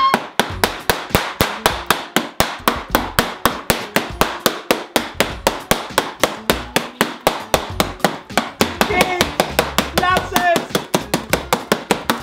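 Wooden rolling pin beaten rapidly and steadily on a table top, about five sharp knocks a second.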